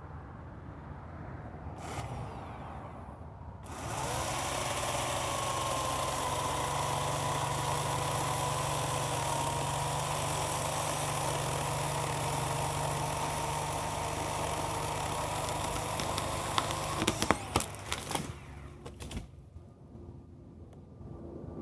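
Chainsaw idling, then held at full throttle for about thirteen seconds making the back cut through a small cedar trunk. Near the end the saw drops off and a cluster of sharp cracks and snaps follows as the cut tree falls.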